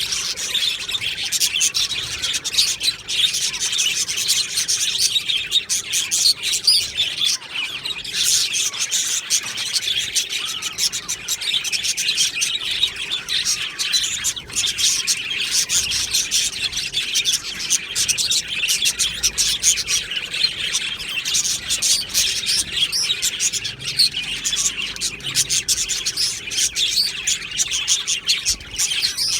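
A flock of budgerigars chirping and warbling together, a dense unbroken chatter of many birds at once.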